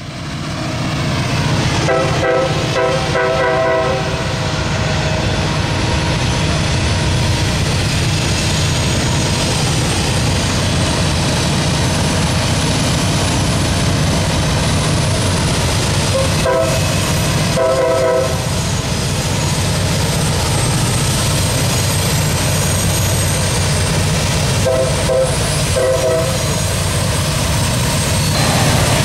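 Norfolk Southern diesel locomotives hauling a loaded ballast train upgrade: a steady low engine drone, with the horn sounding three times, a longer blast about two seconds in, then a pair of short blasts around the middle and another pair near the end.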